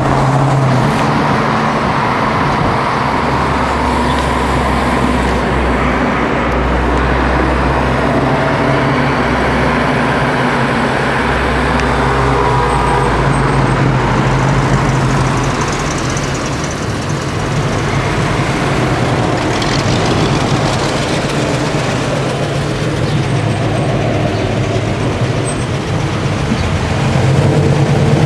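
Car engines running with a steady low drone under road and wind noise, heard from a moving car in traffic; the sound eases a little in the middle and swells again near the end.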